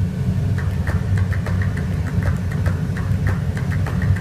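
Airflow rushing past a glider's cockpit at about 120 km/h, a loud steady low rumble. From about half a second in, a fast run of light ticks, roughly five a second, sounds over it.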